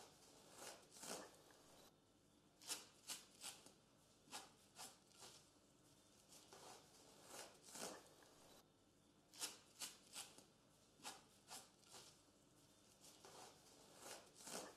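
Faint, irregular short rustles and rips of adhesive bandage tape being unrolled and wrapped around a dog's fractured hind leg as a temporary bandage.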